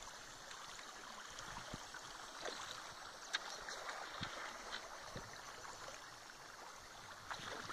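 Water gently gurgling and rippling along the hull of a wooden dugout canoe as it glides downriver, with a few faint, soft knocks scattered through.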